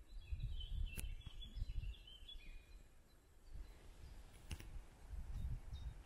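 Wind gusting on the microphone in low rumbling puffs, with a bird calling in short high chirps over the first couple of seconds. Two sharp clicks, about a second in and again past the halfway point.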